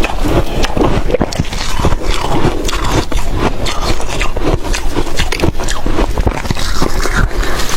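Close-up biting and chewing of freezer frost: a dense run of crisp, irregular crunches.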